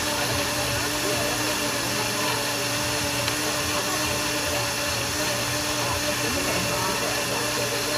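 Countertop blender motor running steadily at high speed, blending a pale green fruit smoothie, with a constant hum under the whir. Faint voices are mixed in.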